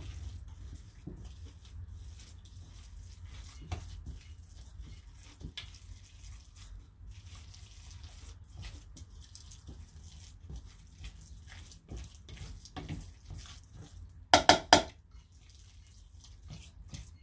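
Egg salad being stirred by hand in a mixing bowl: soft wet squishing and scraping of the utensil against the bowl, with a quick run of a few loud knocks about fourteen seconds in.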